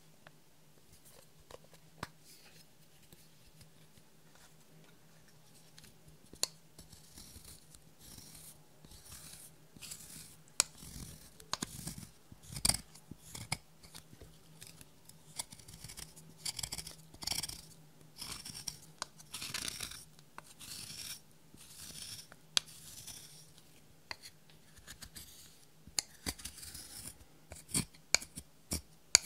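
A thin metal tool scraping and crushing pressed powder highlighter in its compact, making irregular gritty scrapes with sharp clicks. The scraping is sparse at first and becomes busy from about seven seconds in.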